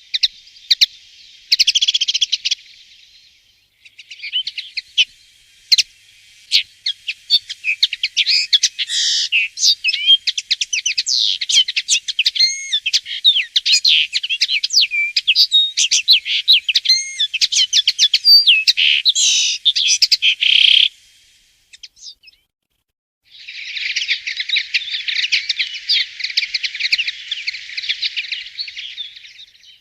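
Common linnet singing its fast twittering warble. A short phrase at the start leads into a long run of quick chirps, trills and slurred notes lasting well over ten seconds; after a pause of about two seconds, another stretch of song follows.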